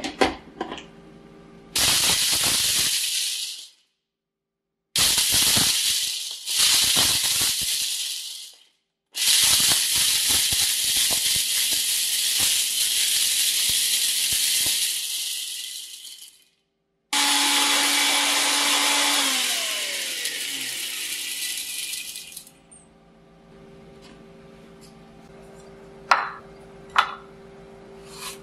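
Ninja Auto-iQ blender grinding hard roasted date seeds to powder in repeated runs. The later runs last several seconds each, and the seeds rattle against the plastic cup. The last run ends with the motor winding down in a falling whine. Near the end a few sharp clicks come as the cup is twisted off the base.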